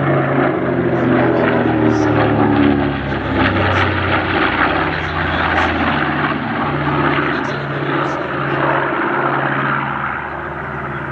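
B-25 Mitchell bomber's twin radial piston engines droning loudly as it flies past. The engine note dips slightly in pitch in the first few seconds, then fades a little near the end.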